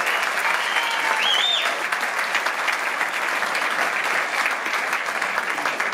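Audience applauding, a dense steady clapping, with a brief high rising-and-falling tone about a second in.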